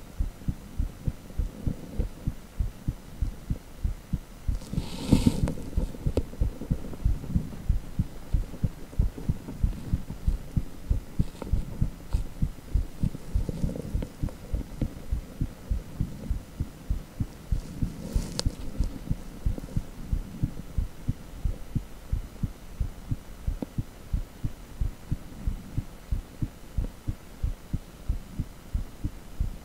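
Heartbeat sound from a cardiac ultrasound (echocardiogram), a quick, steady train of low pulsing beats over a hum. It swells louder briefly about five seconds in and again near eighteen seconds.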